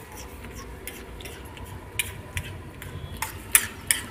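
Metal spatula scraping and striking a large flat metal pan while stirring a big batch of chole, giving irregular sharp clinks, a few of them close together near the end.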